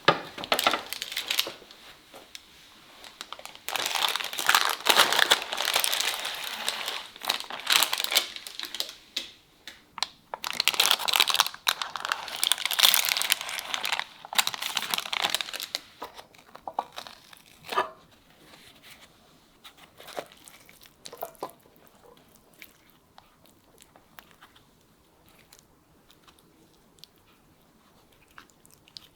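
Parchment baking paper being torn open and crumpled, in long crackling bursts through the first half, then a few soft clicks and taps.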